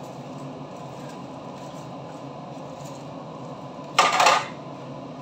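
Steady kitchen background hum, with a loud, brief clatter of about half a second, four seconds in, as a spatula works fried eggplant slices in a frying pan.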